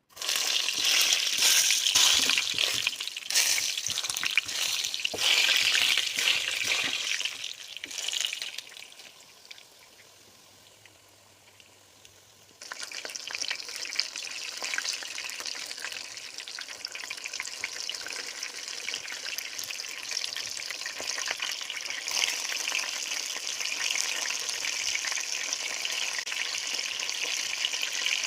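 Chicken nuggets frying in hot oil: a loud sizzle full of crackles. It dies down to near quiet for a few seconds, then comes back suddenly about halfway through and sizzles steadily.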